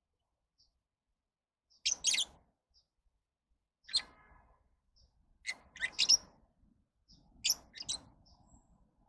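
Lovebirds calling: sharp, high chirps in clusters about every two seconds, with fainter single peeps between them.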